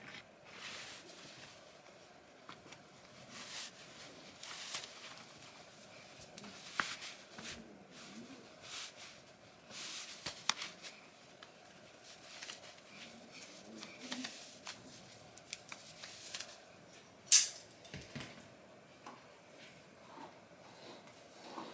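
Soft rustling of clothing and scattered light clicks and taps as someone gets dressed, with a sharper click about seventeen seconds in, over a faint steady hum of room tone.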